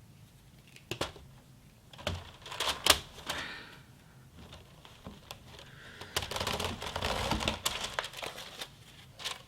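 A plastic 3D-printer filament spool being handled while meat netting is pulled over it: several sharp clicks and knocks in the first few seconds, then a few seconds of dense rustling and crinkling from about six seconds in.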